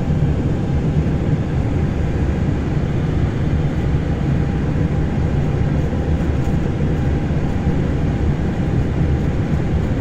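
Steady low rumble inside an Airbus A320 cockpit as the airliner rolls on the ground after landing, its engines at idle.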